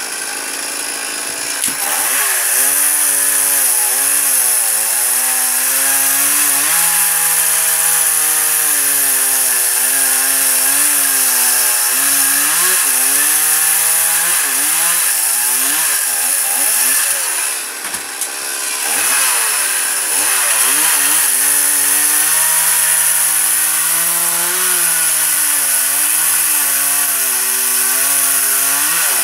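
Two-stroke chainsaw running at high revs as it cuts into a walnut limb, its pitch wavering up and down under the load. About 18 seconds in it drops briefly, then revs up again.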